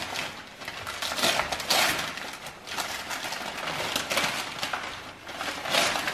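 Gift wrapping paper being torn open and crumpled by hand: a run of irregular crinkles and rips.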